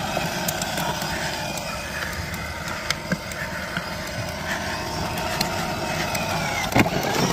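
Kalee 6-volt battery-powered ride-on toy ATV driving: a steady electric-motor and gearbox whine, with its hard plastic wheels rolling over asphalt and a few small clicks.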